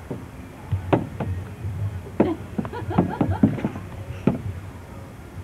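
An irregular run of sharp knocks and taps, one about a second in and a cluster in the middle, over a steady low hum.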